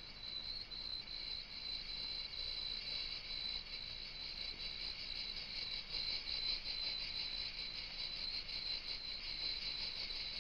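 A dense chorus of insects chirping, a high, steady trill that keeps up without a break.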